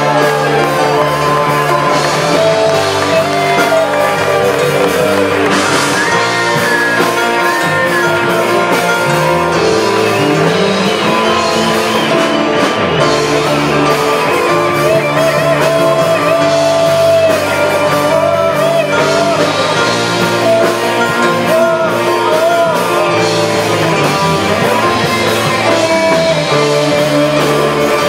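Live rock band playing amplified in a hall: electric guitars, bass guitar and drum kit, with a singer's voice over them.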